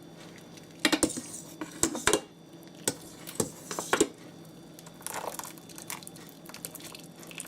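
A kitchen utensil clinking and knocking against metal cookware while drained noodles are handled: a run of sharp clatters in the first four seconds, then lighter scraping and taps.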